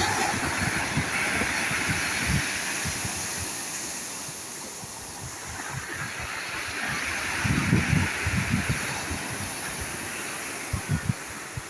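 Sea waves breaking and washing ashore, the surf swelling and easing twice, with wind buffeting the microphone in low thumps.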